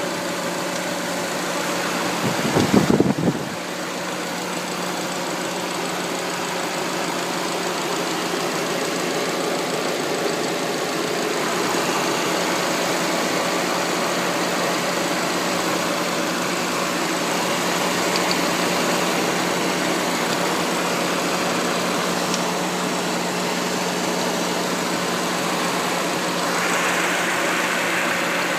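Car engine idling steadily, making a noise the owner finds suspicious. There is a brief louder rush about three seconds in.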